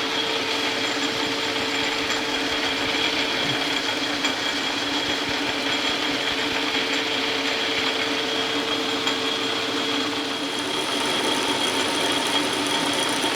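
Metal lathe running steadily, its motor and gear drive giving a constant whine with a couple of fixed tones. The pitch mix shifts slightly about ten seconds in.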